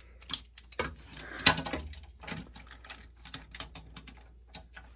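Plastic Transformers toy parts clicking and clacking as they are rotated and snapped into position by hand. The clicks come irregularly, the loudest about one and a half seconds in.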